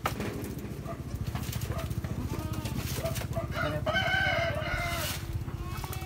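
A rooster crows once, a little past halfway, with a long level call lasting about a second and a half. A few short, faint animal calls come before it.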